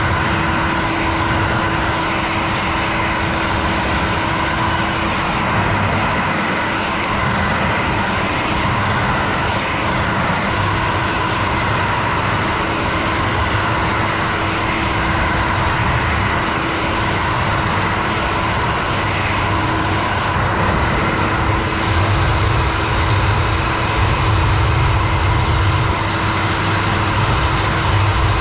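Hair dryer blowing steadily, a rush of air with a steady motor whine over it. The low rumble of the airflow grows stronger in the last few seconds.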